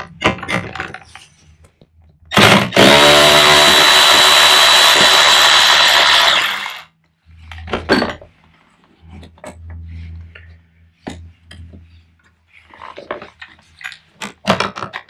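Cordless drill spinning a 3/8 inch socket to back out a seat bolt: it speeds up and runs steadily with a high whine for about four seconds, then stops. Clicks and clatter of the socket and wrench come before and after the run.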